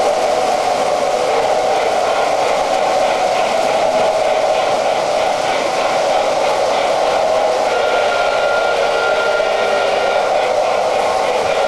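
Several model electric trains running around a toy layout: a steady whirring rumble of motors and wheels on metal track, with a thin steady tone joining about eight seconds in.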